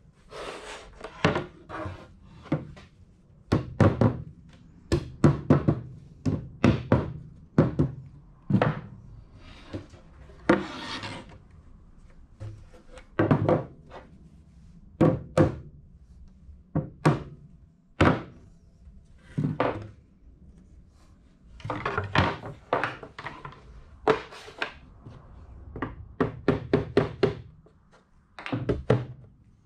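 A white rubber mallet knocks the rails, stiles and panel of a wooden Shaker cabinet door together: many dull thuds in bursts, with short pauses, and wood rubbing as the parts slide into the grooves. The joints are a tight fit because the router-cut grooves came out a hair undersize.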